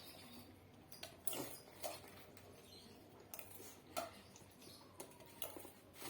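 Faint eating sounds at a mukbang meal: mouth noises from chewing spicy instant noodles, with scattered light clicks and short bursts a few times.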